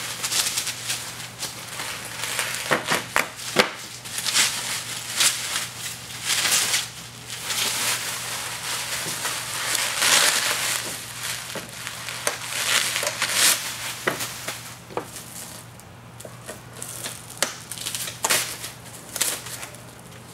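Plastic bubble wrap crinkling and crackling as it is cut open with a utility knife and pulled off a rolled shutter curtain, in irregular bursts with a few sharp clicks.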